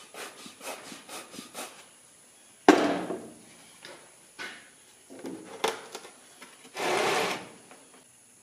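Hands handling a sand casting mold and a charred wooden block: light scrapes and taps, a sharp wooden knock about three seconds in, and a half-second scraping sound near the end.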